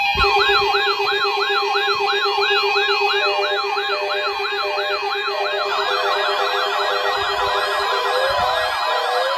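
Many NOAA weather alert radios sounding their alarms together for a weekly test activation. Several rapid warbling siren-like tones overlap with a steady tone, a pulsing buzz and short repeated beeps, and more warbling alarms join about five and a half seconds in.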